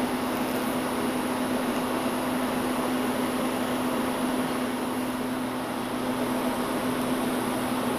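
TIG welding arc running steadily while silicon bronze filler rod is fed in to braze up a cracked cast iron part: an even hiss with a constant low hum under it.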